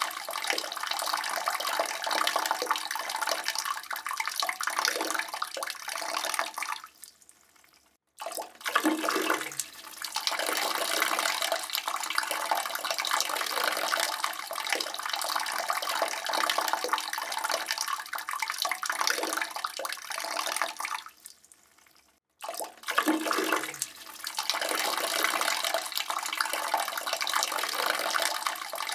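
A man's urine stream splashing into a toilet bowl, running steadily. It tapers off and stops about eight seconds in, then starts again at once with a short spurt, and does the same again about twenty-two seconds in.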